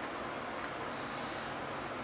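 Steady background hiss with no distinct chewing or utensil sounds, and a faint thin tone about halfway through.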